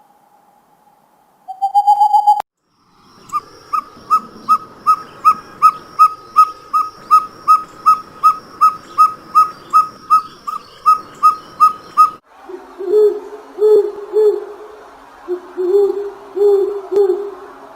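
Owl calls from several recordings joined together: a short run of quick notes, then a long series of high, evenly spaced toots at about three a second over a background hiss, then, after a sudden change past the middle, lower hoots in short groups.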